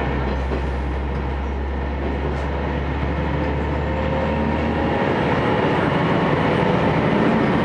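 Cabin noise of an Aizu Railway AT700 diesel railcar under way: a steady low engine drone over rumbling wheel and rail noise. The low drone drops away about five seconds in while the running noise carries on.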